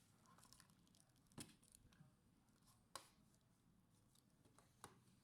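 Near silence with three faint, sharp clicks about a second and a half apart, like small handling taps.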